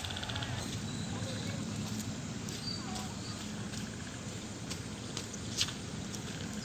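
Steady rain hiss with a few sharp drip ticks and some faint short chirps.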